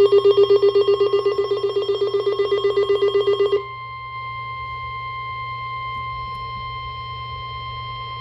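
A rapidly pulsing buzzer-like alert sounds over a steady, single-pitched warning tone and cuts off suddenly about three and a half seconds in, leaving the steady tone sounding alone. The steady tone is the NOAA Weather Radio warning alarm tone, the signal that a weather warning broadcast is about to follow.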